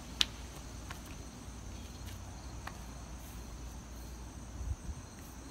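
Insects trilling steadily outdoors, a continuous high-pitched drone. A single sharp click sounds about a quarter of a second in, with a few fainter clicks later.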